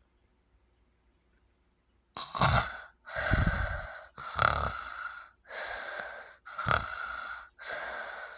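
A sleeper with sleep apnea falls silent for about two seconds, then resumes with loud, rapid gasping snores, about one a second, six in a row, several with a rough rattle. A pause in breathing followed by gasping snores is the typical pattern of sleep apnea.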